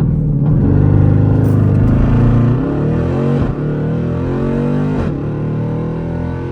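Jeep Grand Cherokee SRT's V8 at full throttle in a launch from a stop. The engine note climbs in pitch and drops back at each upshift, several times.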